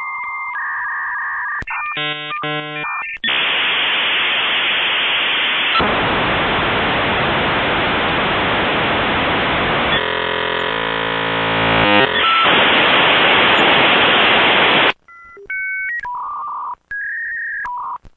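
Dial-up modem handshake over a phone line. It opens with steady answer tones and a quick burst of chirping tones. Then comes about twelve seconds of loud hiss, with a warbling stretch of many tones partway through, and it ends in a few short stepped beeps.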